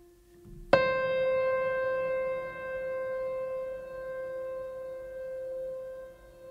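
Calm background music. Under a second in, a sudden struck, bell-like note sounds and rings on over a lower held note.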